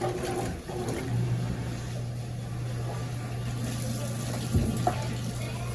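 Consul CWS12 top-load washing machine's drain pump starting about a second in and humming steadily as it pumps out the rinse water. A brief knock comes about four and a half seconds in.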